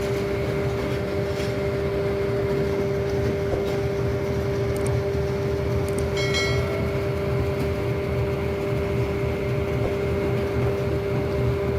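Diesel locomotive of a train running with a steady hum over a low rumble. A brief high-pitched squeal comes about six seconds in.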